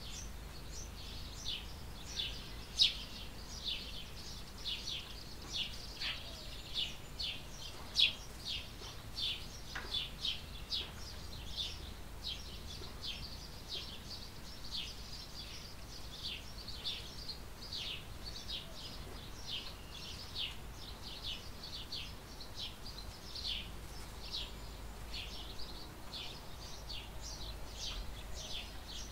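Small songbirds chirping in a steady run of short, high calls, about two a second, with a few louder chirps in the first ten seconds. A faint low hum runs underneath.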